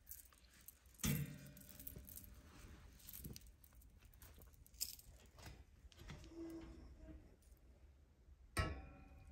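Quiet rustling of a fleece blanket being tucked in around a monkey in a crib, with a few light knocks and clinks, the loudest about a second in and near the end.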